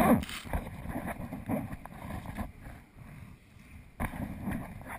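Choppy water slapping and splashing against a sea kayak's hull in uneven bursts, the loudest right at the start and another flurry about four seconds in.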